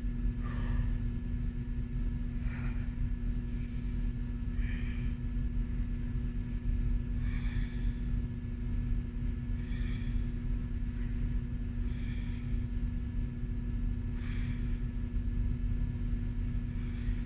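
Steady low rumble with a constant hum, over which a woman's faint breaths come every two to three seconds as she holds a stretch after a workout.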